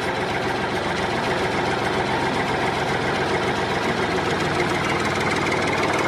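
Heavy-vehicle engine sound for a wheel loader, running steadily with a rapid, even pulse.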